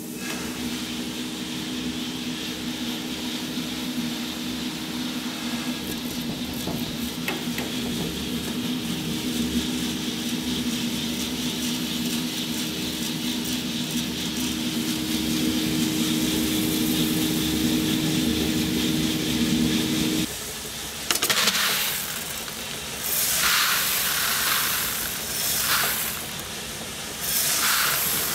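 Giesen drum coffee roaster running: a steady motor and fan hum with airy rushing noise, which cuts off suddenly about two-thirds of the way through. After that come several uneven bursts of hissing, rustling noise.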